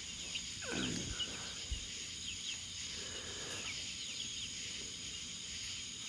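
Crickets and other night insects keep up a steady high chorus. Over it, young poultry peep in short, falling chirps. One longer call slides down in pitch about a second in.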